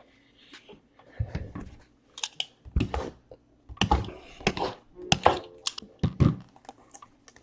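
Sealed trading-card boxes and packs handled on a tabletop: irregular light thunks and crinkly rustles, a few each second.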